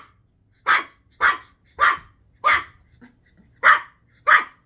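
Small puppy barking: six sharp, high-pitched barks about half a second apart, with a short pause near the middle.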